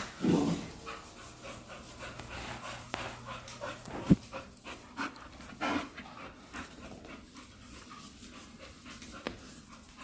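A dog panting rapidly and steadily, with a single sharp knock about four seconds in.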